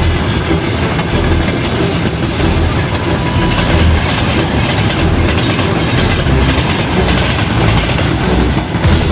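Train wheels clattering over the rail joints, over a steady rumble of a train running on the rails.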